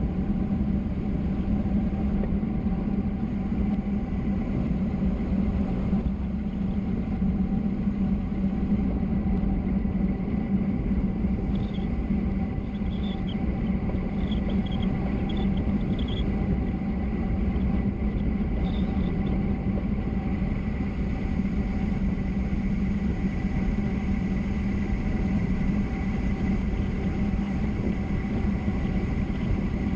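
Steady rushing wind and road rumble of a fast downhill ride, with a constant low drone and a faint high whine. A few faint high chirps come in about halfway through.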